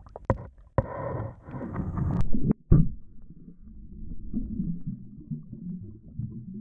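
Water sloshing and bubbling heard through a camera held underwater as a hand releases a spotted bay bass, with a few sharp knocks in the first three seconds. After that comes a low, muffled underwater rumble.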